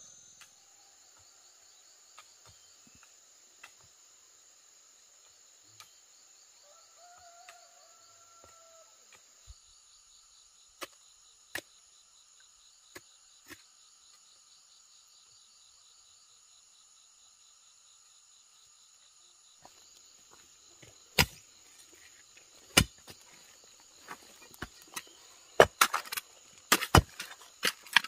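Steady chirring of crickets or other insects, with a few scattered knocks, then from about two-thirds in a run of loud, sharp strikes as a hand digging tool breaks up stony earth, coming faster near the end.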